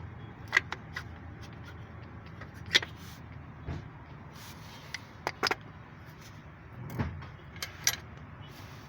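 Tools and metal engine parts clinking and knocking now and then, about seven sharp strikes at uneven intervals over a low steady hum.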